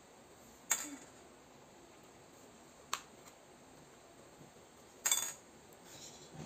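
Three light clinks about two seconds apart, the last a short rattle: small colored candies and a plastic drinking straw knocking against bowls as the candies are picked up with the straw and dropped.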